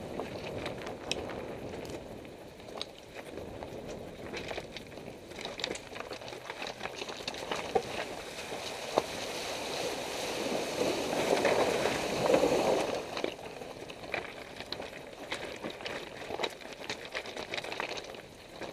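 Mitsubishi Pinin's tyre crunching over loose riverbed stones, with scattered clicks and knocks of stones, and a louder rushing splash about halfway through as the wheel fords a shallow stream.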